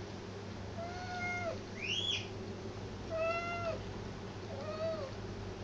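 A cat meowing four times, begging for a tin of cat food held just out of reach; the second meow is shorter and much higher-pitched than the others.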